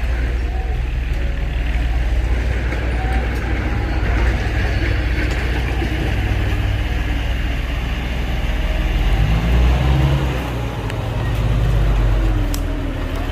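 Heavy diesel engine of earthmoving machinery running steadily with a deep drone, revving up twice in the second half.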